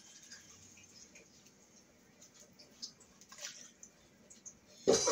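Faint crackling of ground turkey simmering in water in a cast iron skillet, then near the end a glass lid set down onto the skillet with a sudden loud knock.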